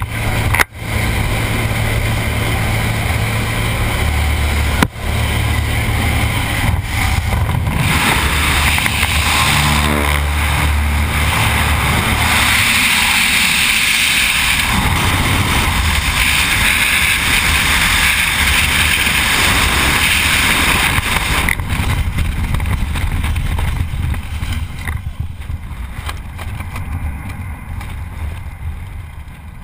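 Small jump plane's engine droning inside the cabin, then, after the exit, a loud rush of freefall wind buffeting the microphone. The wind is strongest mid-way and eases off near the end as the parachute canopy opens.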